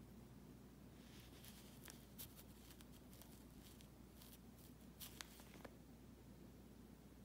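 Faint scratching and light clicks of fingers handling a coin and setting it down on a cloth, over a steady low hum.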